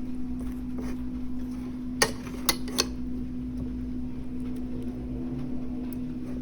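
Metal spoon clinking sharply against a bowl three times, about two seconds in, as it presses hot blanched oregano leaves to squeeze out their juice. A steady low hum runs underneath.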